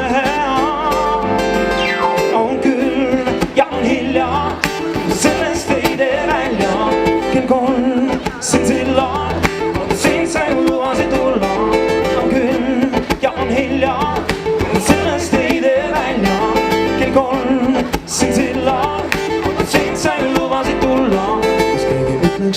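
Live band music with guitar and a steady beat, the lead-in to a sung pop song.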